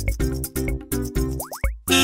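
Playful children's background music with a quick, bouncy beat of plucky notes, with a couple of short rising swoops and a brief break near the end.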